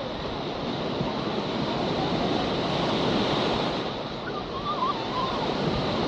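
Small waves breaking and washing up a sandy shore, the surf swelling and easing, with a faint distant voice from the beach about two-thirds of the way in.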